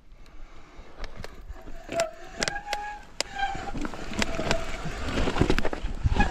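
Mountain bike descending a rough, rocky track: the tyres and frame rattle and knock over the stones, and there are a few short high squeals, typical of the brakes. The rolling noise builds toward the end.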